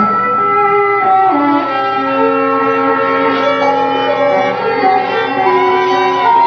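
A string trio playing live: several bowed strings holding long, overlapping notes that shift pitch one at a time.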